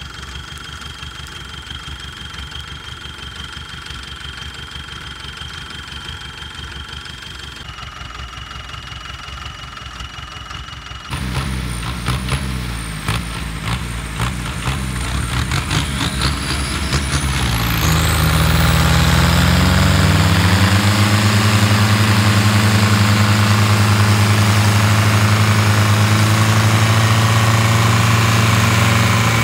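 Belarus tractor diesel engines running at a clattering idle, then from about eleven seconds in revving up with a rising whine to a loud, steady full-throttle run. The engines are under heavy load, pulling a stuck tractor and trailer out of the mud.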